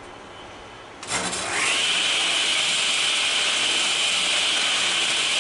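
Benchtop table saw switched on about a second in: its motor whine rises quickly in pitch as the blade spins up to speed, then runs loud and steady.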